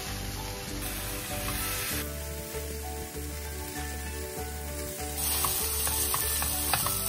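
Diced kimchi and Spam cubes sizzling as they are stir-fried in a nonstick frying pan, with silicone spatulas stirring and clicking against the pan.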